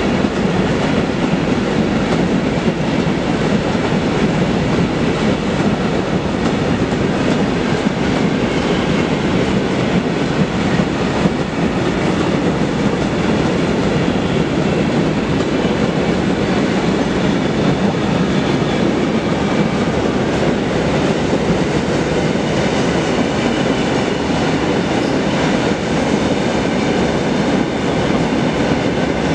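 Freight train of hopper wagons passing close at speed: a steady, loud rumble and clatter of wheels on the rails.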